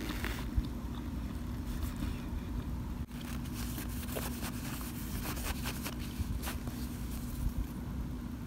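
Plastic spoon scraping and prying into a pan of oven-baked cornstarch chunks, with faint scattered crunches and small clicks as pieces break. A steady low hum and rumble sits under it and is the louder sound.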